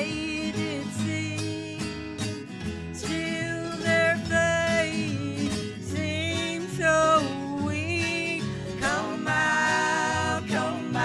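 Country gospel band playing, with acoustic guitar, a steady bass and a wavering lead melody line over the chords.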